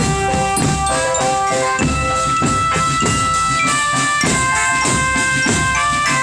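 Drum band music: a bright tune in held notes over drums keeping a steady beat.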